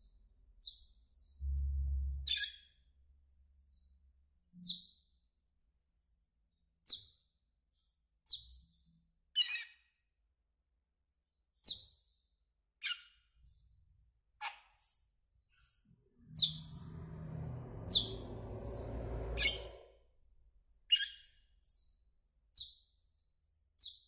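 Asian glossy starling calling: short, sharp, high notes that slide downward, one every second or two. A low rumbling noise sits underneath briefly near the start and again for a few seconds past the middle.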